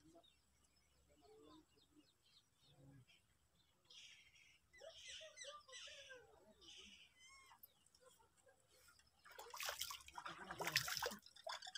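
Faint bird calls of short, curving chirps, heard from about four seconds in. Near the end comes a louder burst of water splashing at the river's edge, lasting about two seconds.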